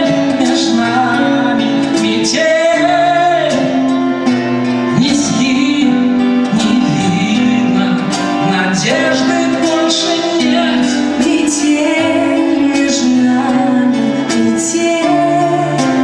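A live band plays a slow song with a singing voice carrying the melody over sustained chords and guitar accompaniment.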